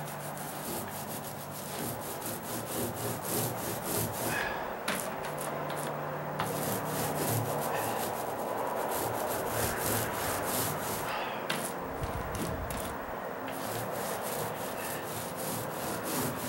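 Paint roller on an extension pole rolling wet paint back and forth over the rough side of OSB deck flooring: a steady, scratchy rubbing with fine crackles, swelling and easing with the strokes.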